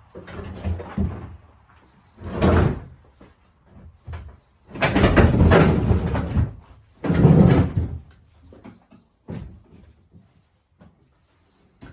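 Old wooden cupboard units being shifted and pulled out: a series of scrapes, bangs and knocks of panels and doors. The longest and loudest scrape comes about five seconds in and lasts over a second.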